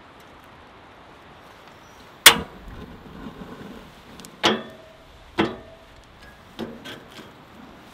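A series of sharp knocks: three loud, separate strikes, the first the loudest, each with a brief ringing tail, then a few lighter taps near the end.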